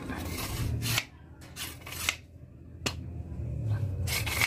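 Rubbing and scraping of hands working on the freshly glued wooden knife sheath, in two stretches with a few sharp clicks between them.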